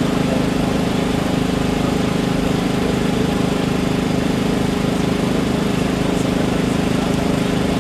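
An engine running steadily at constant speed, with a low, even hum and a fast regular pulse.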